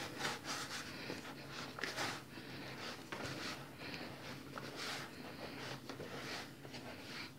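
Hands kneading soft yeast dough and loose flour in a glass bowl: faint, irregular pressing and rubbing strokes.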